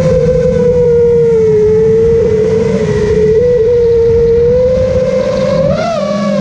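Nazgul FPV quadcopter's motors and propellers, on a 6S battery, whining at a fairly steady pitch with a rough buzz underneath. The pitch wavers slightly and jumps up briefly near the end before settling back.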